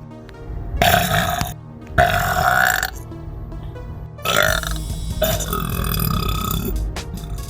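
A girl burping loudly several times in a row, the last burp long and drawn out, with background music.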